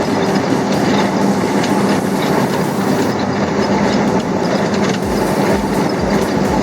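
A 26-foot moving truck's engine and tyres droning steadily inside the cab at highway speed, with a steady low hum. From about five seconds in, a run of low thumps, as from road joints.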